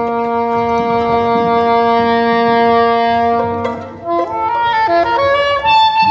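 Soprano saxophone in a concert saxophone concerto, holding one long low note, then after a brief drop about four seconds in, playing a quick stepping phrase that climbs to a higher held note near the end.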